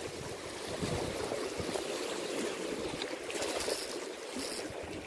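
Choppy, fast-moving lake water rushing and splashing steadily against a concrete bank.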